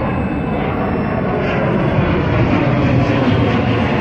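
Jet engines of a twin-engine airliner passing low overhead, a steady noise that grows a little louder partway through.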